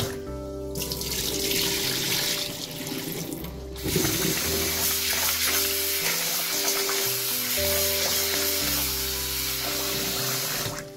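Tap water pouring into a stainless steel bowl of rice being washed by hand, starting about a second in, over background music with a steady bass line.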